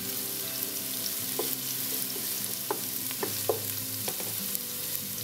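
Diced red onion sizzling in olive oil in a nonstick pan, stirred with a wooden spatula that knocks and scrapes against the pan a few times, most sharply around the middle.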